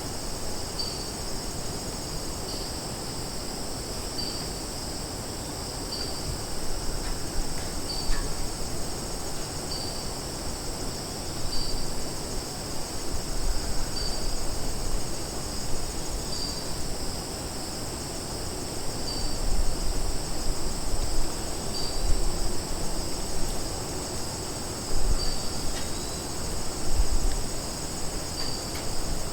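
Summer forest ambience: a steady, high chorus of crickets and other insects, with one short chirp repeating about every two seconds. Beneath it, a low rumble swells and fades now and then.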